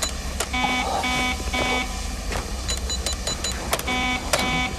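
Electronic door keypad: three low buzzing beeps, then four quick high beeps from key presses about three seconds in, then three more buzzing beeps near the end, over a low steady rumble.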